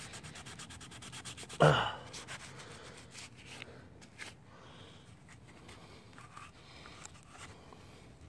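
A green scouring pad scrubbing an aluminum GY6 scooter cylinder head by hand, working off grime loosened with WD-40. Fast, even rubbing strokes at first, then fainter, scattered scrapes. One short loud noise comes about a second and a half in.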